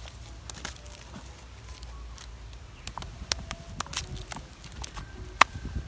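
Freshly caught fish moving on dry, leaf-strewn ground, making scattered sharp taps and rustles that come more often after about three seconds, with one loud tap near the end, over a steady low rumble.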